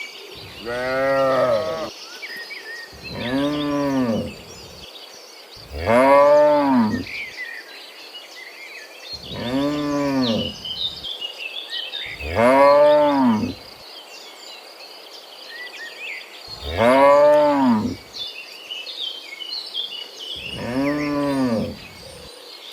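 Cattle mooing: seven long moos, each rising and then falling in pitch, one every three to four seconds.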